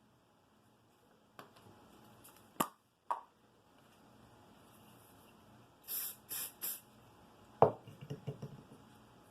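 Small bench-work handling sounds: a few sharp clicks, then three short hissing spurts in quick succession, then a sharp knock followed by a brief light rattle.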